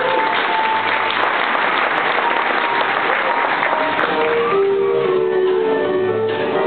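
Audience applauding over a school band that keeps playing; the clapping dies away about four seconds in, leaving the band's held chords.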